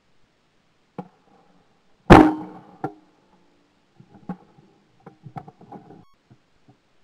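A single shotgun shot at a trap clay, loud and sharp with a short ringing tail, about two seconds in; the clay is broken. A faint click comes a second before it and a smaller sharp knock just after it, then a few light clicks and knocks as the gun is lowered and handled.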